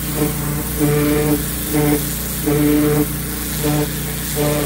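Pressure washer running steadily while it sprays a wheel, its drone swelling in about six short surges.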